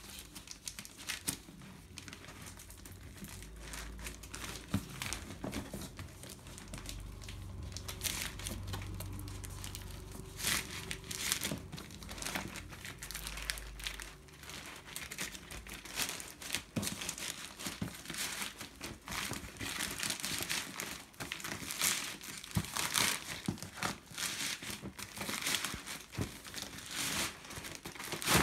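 Plastic courier mailer and black plastic bag crinkling and crackling as they are pulled and worked off a shoebox, in irregular bursts that grow busier in the second half. A low rumble lies underneath in the first half.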